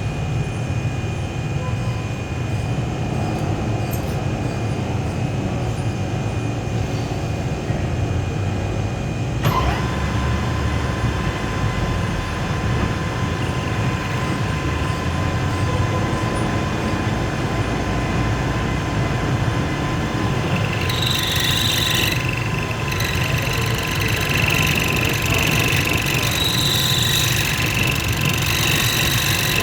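Lathe running with a steady low hum. About a third of the way in a steady whine joins, and later a higher-pitched hissing sound comes in on top.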